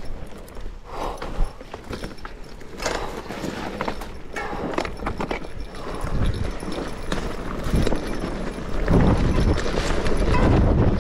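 Mountain bike clattering along a rough dirt trail: irregular knocks and rattles from the bike over rocks and ruts, with brush scraping, growing louder and rumbling near the end as it picks up speed.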